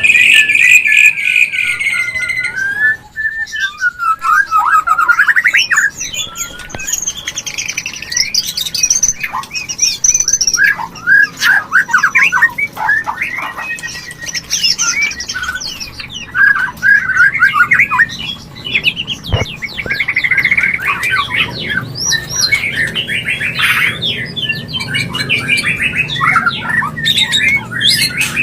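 White-rumped shama (murai batu) singing its breeding song. It opens with a held whistle that drops in pitch, then runs of fast, varied, sharp notes, some very high.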